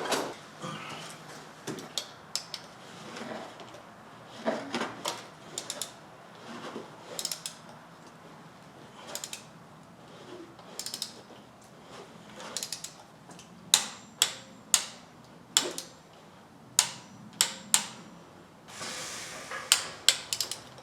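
Wrench ratcheting and clicking as spark plugs are tightened to 13 foot-pounds: scattered sharp clicks and short runs of clicks, the louder ones in the second half.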